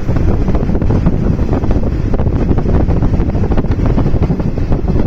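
Wind buffeting the microphone at an open train window, over the steady low rumble and irregular rattle of the moving passenger train.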